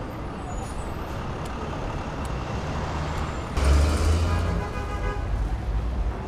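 Box truck driving past on a city street over steady traffic rumble. About three and a half seconds in, a sudden hiss and a heavier low engine rumble come in, followed by a high tone that lasts a second or so.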